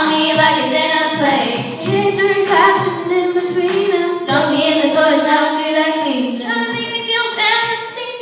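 A girl singing solo with little or no accompaniment, in long held notes; the last note fades out near the end, closing the song.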